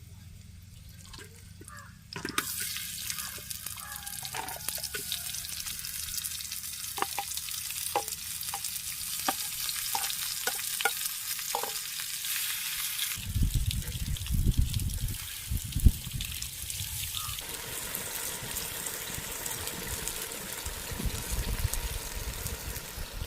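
Food frying and sizzling in hot oil in a clay pot, the sizzle starting suddenly a couple of seconds in and running on steadily with scattered sharp clicks. A low rumbling comes in about halfway through.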